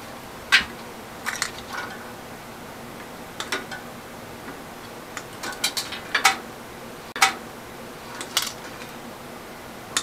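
Scattered sharp clicks and clacks of a screwdriver prying at the plastic micro-switch bracket of a microwave oven being taken apart, hard plastic and metal knocking against each other, about eight times at uneven intervals.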